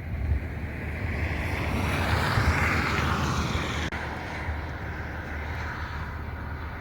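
Steady low road rumble of a moving vehicle, with a rushing hiss that swells and fades about two to three seconds in.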